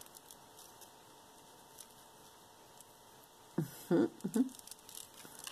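Quiet handling of bead necklaces and plastic bags: faint light clicks and rustles. A short wordless voice sound comes a little past halfway.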